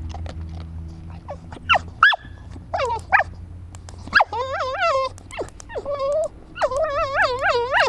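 A Cockermops (cocker spaniel–pug cross) whining: a few short, sharp high yelps in the first three seconds, then two longer, high wavering whines, the second near the end.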